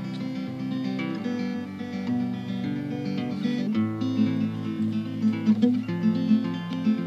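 Background music: acoustic guitar picking and strumming.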